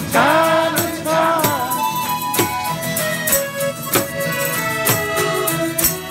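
Live band music with a steady beat; bending notes at the start give way to long held notes.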